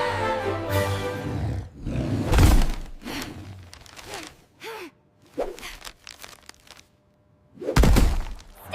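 Background music fades out, followed by two heavy thuds with short, scattered sound effects and a brief silence between them.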